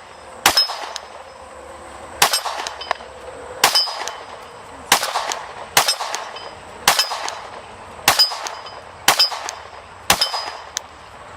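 A Glock 17 9mm pistol firing nine steady shots at a slow pace, about one a second. Each shot is followed by a short metallic ring from a steel target being hit.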